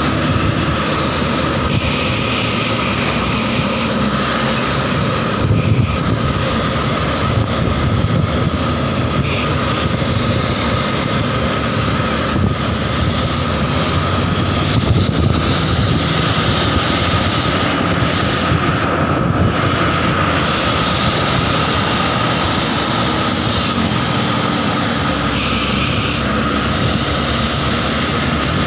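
Steady vehicle noise from riding close behind a Mercedes-Benz intercity bus: engine and road noise, with a thin steady whine throughout.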